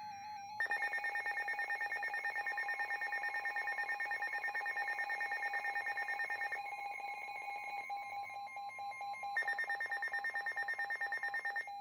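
Weather radio alert for a severe thunderstorm warning: a rapidly pulsing electronic alarm tone that starts about half a second in and runs about eleven seconds, with a fainter steady tone beneath it from about two seconds in.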